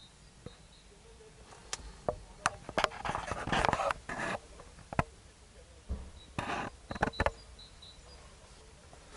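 Handling noise from a hand-held camera being moved around a parked car's cabin: scattered sharp clicks and knocks with short bursts of rustling, in two clusters, with faint high chirps in the background.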